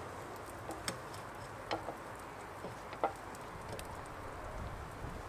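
Tomato sauce reducing on a hot wood-fired brasero: a faint steady sizzle with a few scattered pops and crackles.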